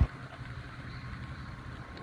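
Faint, steady low hum and hiss of background noise, left after a louder low rumble cuts off right at the start.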